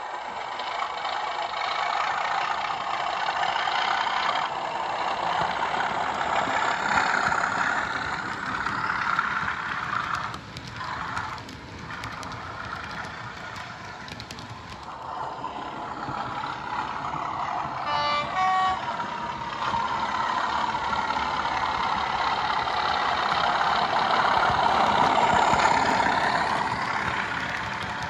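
Hornby TTS sound decoder in a Bachmann Class 37 model, playing an English Electric V12 diesel engine sound through a small iPhone speaker. The engine note rises and falls as the model runs. A short horn blast sounds about two-thirds of the way through.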